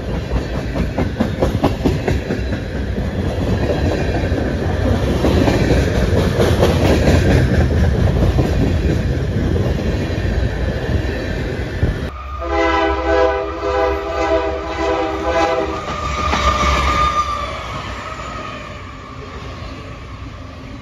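Freight train of tank cars rolling past close by: wheel rumble and the clickety-clack of wheels over rail joints. About twelve seconds in, the sound cuts abruptly and a multi-chime locomotive air horn sounds for about four seconds, followed by the rumble of a passing train fading away.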